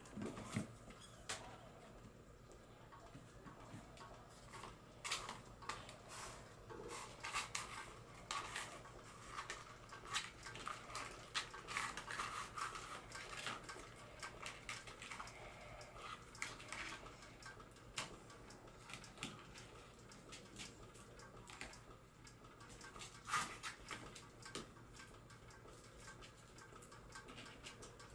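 Bengal kittens at play: scattered light taps, clicks and scuffles of paws and claws on a hard tile floor and against toys.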